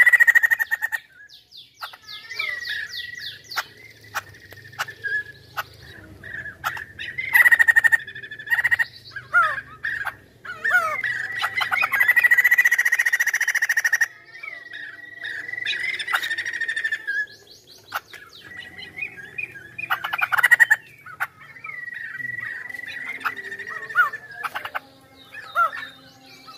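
White-crested laughingthrush (poksay hongkong) singing a long, varied song: held whistled notes at one steady pitch alternating with fast rattling trills, quick swooping notes and sharp clicks, in phrases with short pauses.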